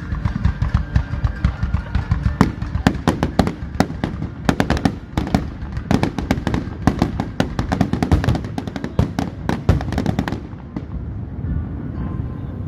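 Fireworks going off in a rapid barrage of bangs and crackles, stopping suddenly about ten seconds in, with music playing underneath.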